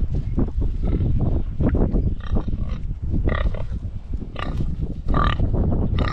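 Domestic pigs grunting up close, with four or five short, higher-pitched calls through the middle and end.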